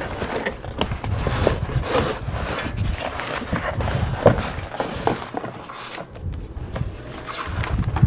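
Polystyrene foam packing block scraping and rubbing against a cardboard box as it is slid out, with cardboard flaps being handled. There is a sharp knock about four seconds in, and the rubbing grows quieter near the end.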